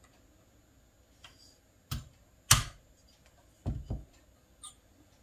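Light taps of a hammer on a short pin punch, driving a loose pin out of a Rossi 92 lever-action receiver: a few separate sharp taps, the loudest about halfway through.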